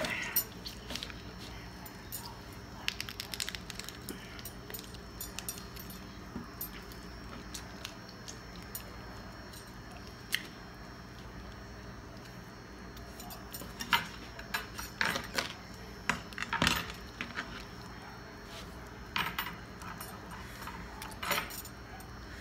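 Light, scattered clicks, clinks and handling noises of a raw turkey wing being worked apart by hand on a plastic cutting board, with metal bangles clinking at the wrist. The clinks come in busier runs about two-thirds of the way in and again near the end.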